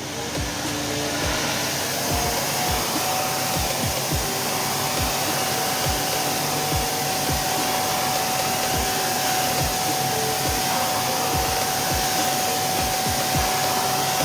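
Household vacuum cleaner switched on, its motor spinning up over the first couple of seconds to a steady whine over a loud rush of air drawn through a cyclone separator.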